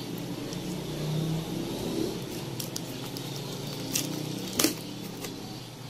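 Scissors cutting packing tape on a cardboard parcel, with hands rubbing and handling the box. A few light clicks follow, then a sharp crack about four and a half seconds in as the tape is pulled away from the cardboard.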